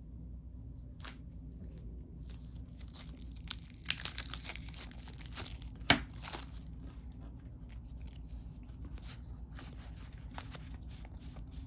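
Plastic wrapping being torn and crinkled off a small pack of game cards, with a sharp click about six seconds in, then lighter clicks as the cards are handled.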